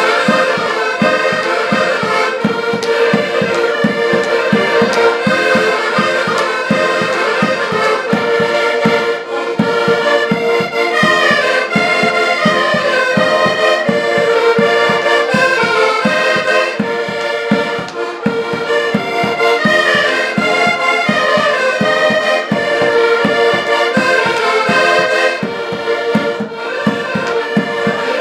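Several accordions playing a Portuguese folk tune together, with a bass drum beating a steady rhythm.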